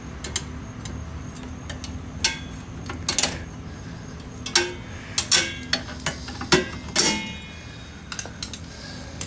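Metallic clicks and clinks of a brake spring tool working a steel return spring over the anchor pin of a drum brake, irregular and a few to a second, with a louder ringing clink about seven seconds in. A low steady hum lies underneath.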